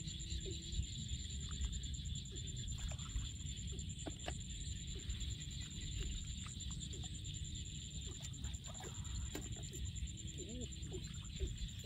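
Hands digging in wet mud and shallow water for mud clams, with faint scattered splashes and squelches, over a steady low wind rumble and a constant high-pitched buzz. Faint short calls, like distant fowl, come now and then.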